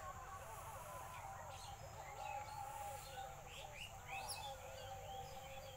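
Several small birds chirping and calling over each other, many short notes rising and falling in pitch, a few at a time.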